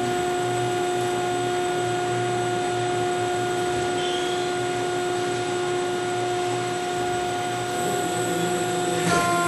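CNC profile roll bending machine running steadily, with an even whine of several steady tones over a mechanical hum as its rolls bend square tubing. Near the end there is a short knock and the pitch of the whine shifts.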